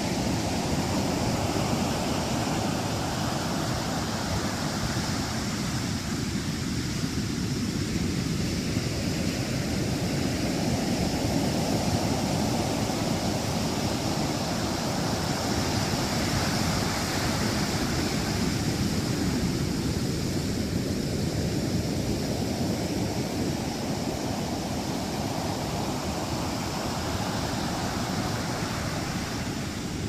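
Heavy surf breaking and foaming whitewater washing up the sand, a continuous rush that swells and eases every several seconds as each wave comes in. It is the rough storm swell left behind after a typhoon.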